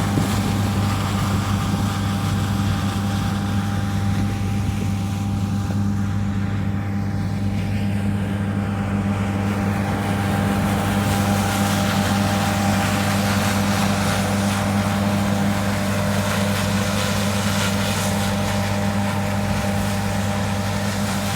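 Combine harvester running steadily while cutting spring barley: an even low engine hum with a faint steady whine above it.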